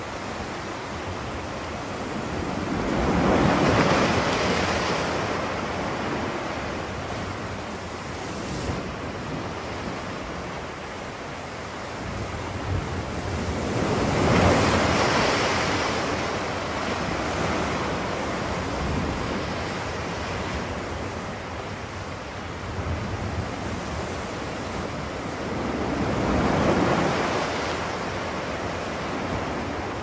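A steady rushing noise that swells and eases three times, about eleven seconds apart, in the way of surf washing in.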